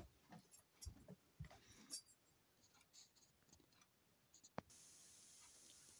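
Near silence: room tone with a few faint knocks and clicks, one sharper click about four and a half seconds in, then a faint steady hiss.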